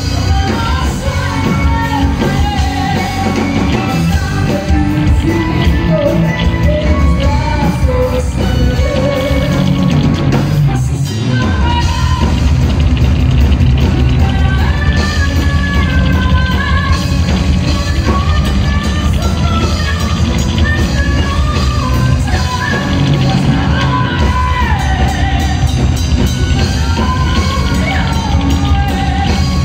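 Metal band playing live through a stage PA: distorted electric guitar, bass guitar and drums, with a woman singing a melodic line over them. The bass and drums drop out briefly about eleven seconds in.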